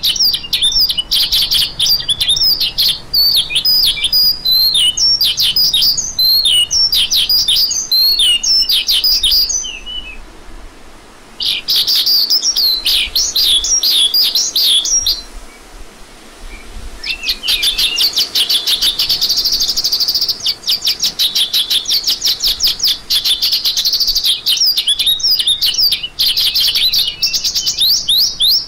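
Lark singing: a fast, jumbled stream of high chirps and whistles that breaks off twice for a second or two, then a long run of rapidly repeated notes through the second half.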